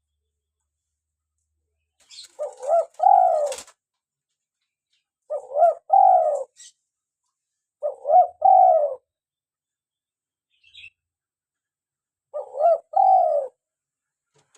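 Spotted dove (tekukur) cooing: four short phrases of a few low coo notes each, a few seconds apart.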